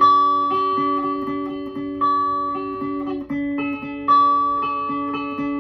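Electric guitar with a clean tone, picked one note at a time across a chord shape on the upper strings, the notes left ringing over each other in an even arpeggio. About three and a half seconds in it moves to a new chord.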